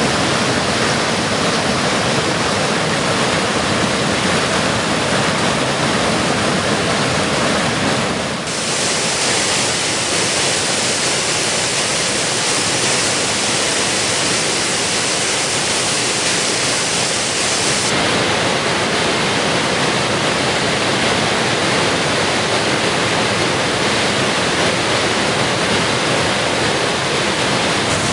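A stream in flood rushing over rocks and pouring down a waterfall: a loud, steady rush of white water. Its tone changes abruptly twice, about a third of the way in and again just past the middle.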